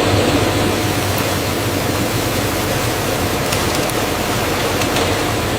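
Steady machinery noise from an automated potato-chip production line: an even hiss over a low hum, with a few faint ticks.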